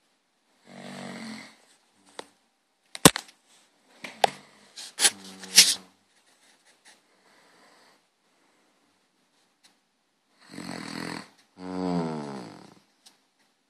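Snoring: a breath about a second in, a few sharp snorts and clicks between about three and six seconds, a pause, then two long snoring breaths near the end, the last one a pitched snore.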